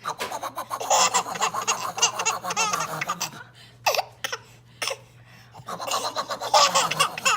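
A baby laughing in rapid, pulsing fits: one bout over the first three seconds, a short lull, then laughing again from about six seconds in.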